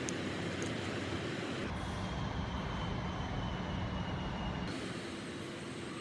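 Steady vehicle-like mechanical noise. About two seconds in it abruptly changes for about three seconds, with a heavier low end and a faint, slightly falling whine, then returns to the steady noise.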